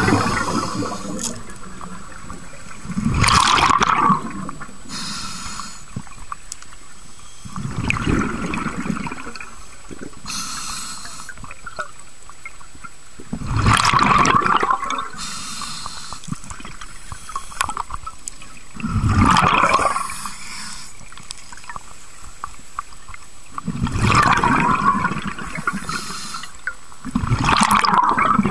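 Scuba regulator breathing heard underwater: a gurgling rush of exhaled bubbles about every five seconds, with a short hiss of inhaled air between them.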